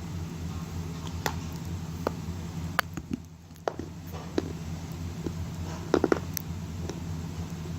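Wet grey clay being chewed in the mouth: scattered soft wet clicks and smacks, with a quick run of three about six seconds in, over a steady low hum.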